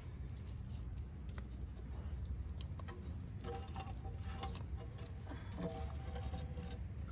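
Light clicks and taps as a new oil pan is handled and lifted up against the engine's underside, over a steady low outdoor rumble. A few faint held tones sound for a couple of seconds in the middle.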